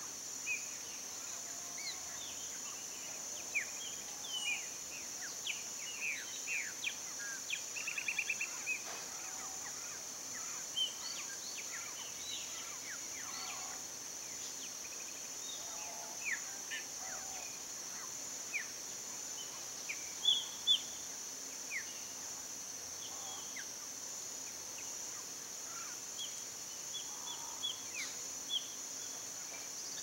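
A steady, high insect drone, with many short bird chirps and calls scattered over it. There is a quick run of notes about eight seconds in, and the loudest calls come about twenty seconds in.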